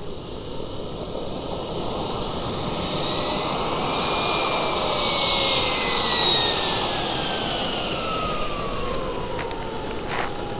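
RC model turbine jet engine whining at high pitch. The whine rises a little and is loudest about halfway through, then falls steadily in pitch over the last few seconds as the turbine spools down.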